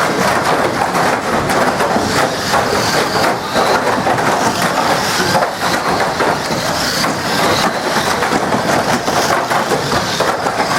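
Banger racing cars colliding and scraping together: a continuous, dense clatter of knocks and crunches.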